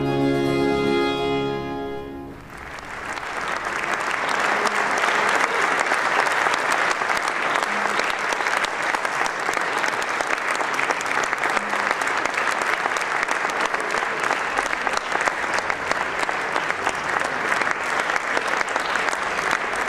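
A period string ensemble holds a final chord that dies away about two seconds in; then the audience applauds, with steady, dense clapping for the rest of the time.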